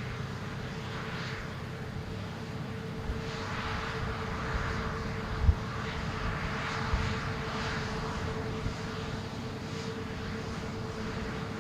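Jet airliner's engines at takeoff thrust: a steady rushing noise with a constant hum, swelling and easing in waves. There is a brief low thump about five and a half seconds in.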